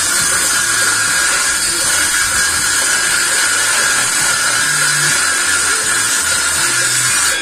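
Homemade wooden-framed table saw, its circular blade cutting thin wooden slats fed through by hand: a steady high-pitched whine with dense sawing noise.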